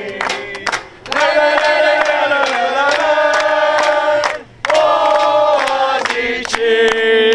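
A group of football supporters, men and women, singing a club chant together in long sung phrases, with brief breaks about a second in and past the middle, over a steady beat of hand claps.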